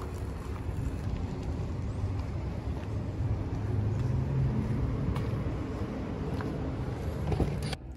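Steady road-vehicle noise: an even low rumble with no distinct events.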